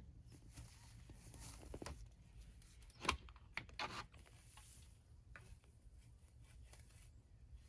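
Shovel digging into hard garden soil: a few short scrapes and crunches as the blade cuts in and the soil breaks up, the loudest about three seconds in.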